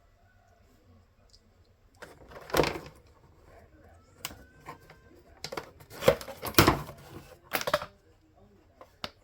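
Clicks, knocks and rustles of small plastic parts being handled and pressed together: a map light button being pushed onto its switch with a paper shim. The sounds come in irregular clusters, loudest about two and a half seconds in and again around six to seven seconds in.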